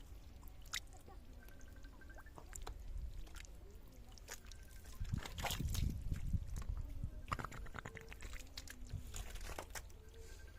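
Water sloshing and splashing, with a louder stretch of splashing about five seconds in.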